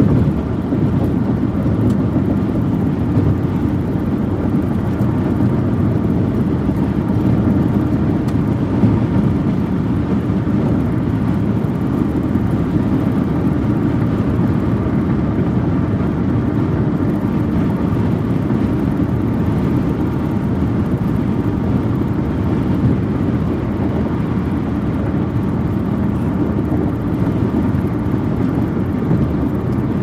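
Steady road noise inside a car's cabin at freeway speed: low tyre and engine hum.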